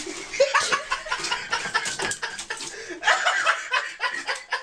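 Human laughter in short, repeated chuckles.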